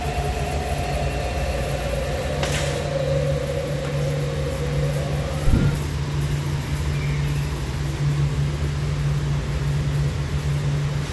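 Steady mechanical hum of electric blower fans running inside Halloween inflatables, with a faint held tone through the first half, a short click about two and a half seconds in and a knock about five and a half seconds in.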